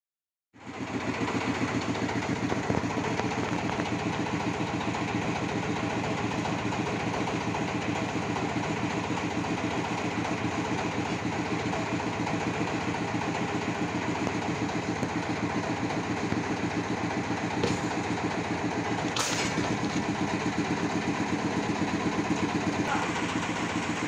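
Sawmill engine running steadily with an even, rapid pulse, cutting in abruptly at the start; two short clicks sound close together in the second half.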